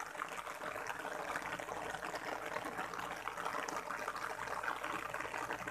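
Heavy rain falling steadily, a dense hiss of drops.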